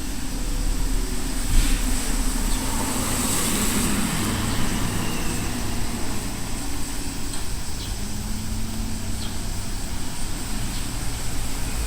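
Outdoor street ambience of road traffic: a steady low rumble, with a vehicle passing by about three to four seconds in. A thin, steady high tone sits above it throughout.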